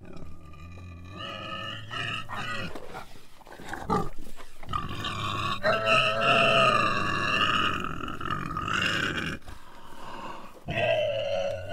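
An animal growling in long, drawn-out pitched calls with a low rumble beneath. One call runs about four seconds in the middle, and another starts near the end.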